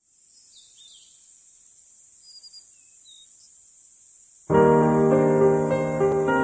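Background piano music that starts suddenly about four and a half seconds in and plays on with steady held notes. Before it there is only a faint, steady high hiss with a few faint chirps.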